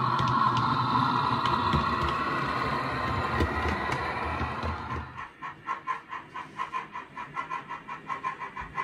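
Model diesel railcar running on a model railway: a steady motor hum with wheel rumble on the track, which fades about five seconds in to a softer, even pulsing at about three beats a second.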